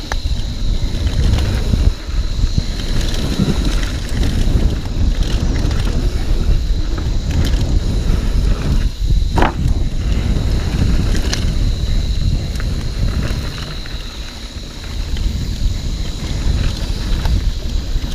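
Mountain bike riding down a dirt trail: a heavy wind rumble on the microphone mixed with tyre noise and the rattle of the bike over the ground, with a sharp knock about nine seconds in.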